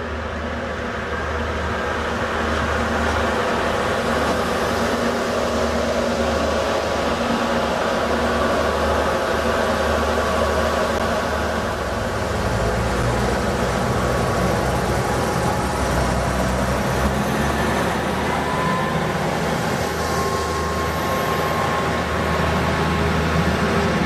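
Irish Rail 2700 Class 'Arrow' diesel railcars running past at close range: a steady low diesel engine drone with wheel-on-rail noise. A thin high whine comes in briefly about three quarters of the way through.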